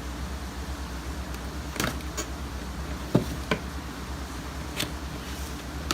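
A cardboard figure box and its tape being worked open by hand: a handful of short sharp clicks and snaps over a steady low hum.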